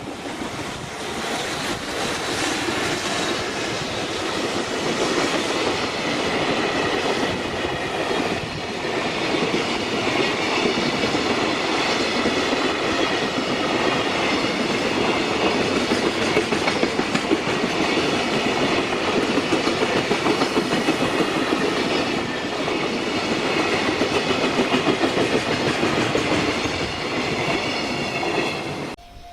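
Freight train passing close by, its wagons' wheels clattering over the rail joints steadily for nearly half a minute before the sound cuts off suddenly near the end.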